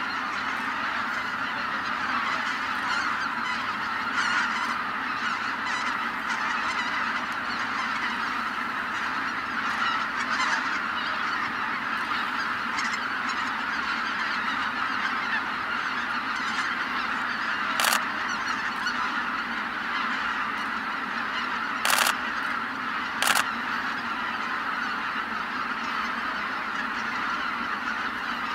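A huge flock of greater white-fronted geese calling all at once in a dense, unbroken chorus of honking as they fly in to roost. Three short, sharp noises stand out in the last third.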